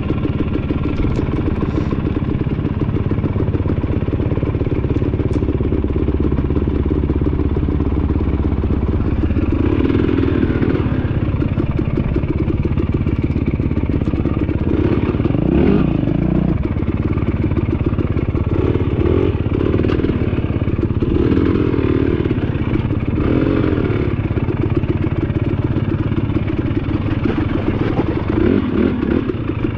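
KTM dirt bike engine running under the rider on rocky singletrack, the engine note swelling with bursts of throttle several times.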